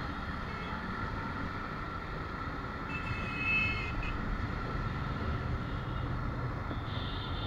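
Riding noise of a Suzuki Gixxer FI ABS motorcycle picking up speed: steady engine and wind rumble on the handlebar microphone. A horn sounds for about a second midway, and a high beeping starts near the end.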